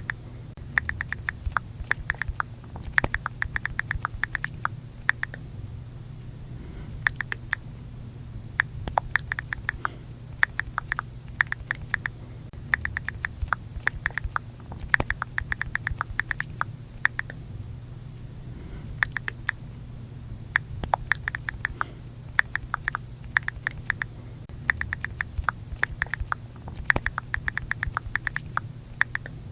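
iPhone keyboard click sounds from typing: quick runs of short, sharp clicks in bursts of a second or two, with short pauses between, over a steady low hum.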